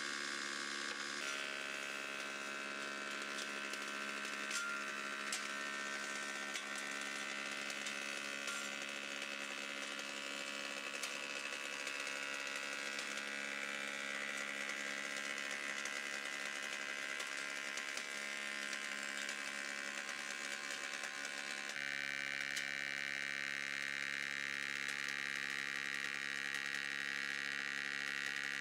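Woodmaster 18-inch planer-molder running steadily at a slow feed, its steel profile knives cutting a molding profile into a curved trim blank, with the dust collector running. The tone shifts abruptly about a second in and again about three-quarters of the way through.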